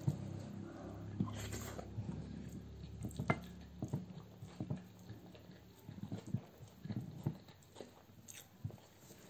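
People eating rice and chicken gravy by hand: chewing and mouth sounds, with fingers mixing food on plates, heard as scattered short clicks.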